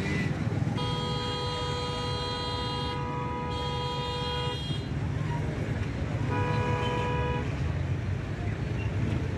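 Car horns honking in jammed street traffic: one long blast of nearly four seconds starting about a second in, then a shorter blast of about a second, over a steady low rumble of idling traffic.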